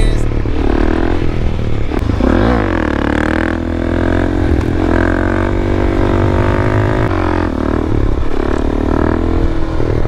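Suzuki DR-Z400SM single-cylinder four-stroke engine through an FMF PowerCore 4 exhaust, revving up and down repeatedly as the throttle is worked through a wheelie.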